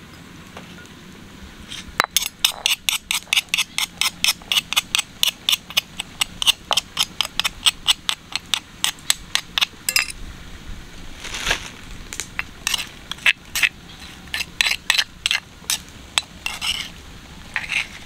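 Metal spoon clinking and scraping against a stone mortar while stirring chili paste: quick taps, about five a second, for several seconds, then slower scrapes and clicks.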